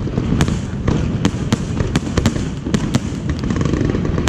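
New Year fireworks display: a continuous low rumble of bursting shells under sharp cracks, about three a second.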